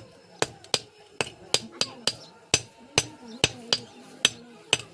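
A blacksmith's hammer striking steel on an anvil while forging a chisel: about a dozen sharp, ringing blows at an uneven two to three a second.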